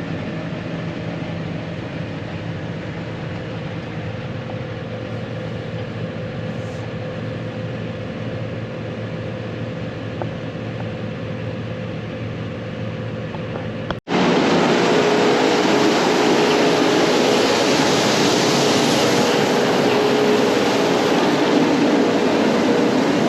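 Combine harvester, an old New Holland TX62, running steadily at work in the wheat with a low droning hum. About fourteen seconds in there is an abrupt cut to a louder, harsher stretch of the machine running.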